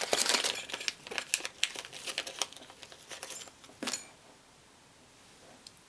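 Small plastic packaging being handled, crinkling with many quick clicks and taps, ending in a sharper knock about four seconds in; after that only faint room tone.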